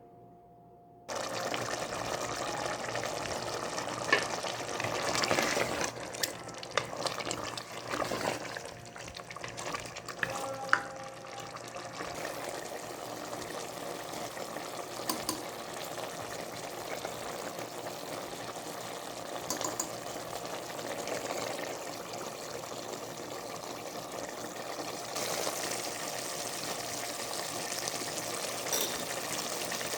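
Chicken karahi with tomatoes sizzling in the pan, a steady frying hiss that starts about a second in. Several sharp knocks and scrapes of a spatula stirring against the pan come in the first part.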